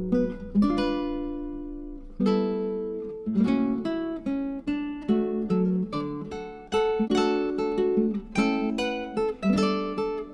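Background music: plucked and strummed acoustic guitar chords, each note struck and then fading.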